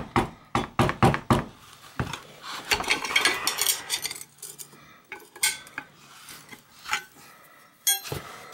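Wooden mallet tapping a Park Tool HCW-5 cone wrench to break loose the drive-side cone of a one-piece BMX crank: about five quick taps in the first second and a half, then one more. Next comes metal scraping and rattling as the wrench turns the cone, then a few scattered clinks of steel parts, with a ringing clink near the end.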